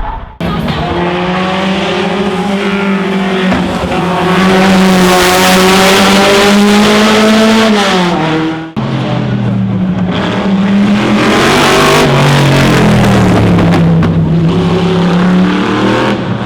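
Racing car engine revving hard, its pitch holding high and then dropping as the throttle comes off. The sound cuts abruptly a little past halfway to another racing engine whose pitch rises and falls through the revs.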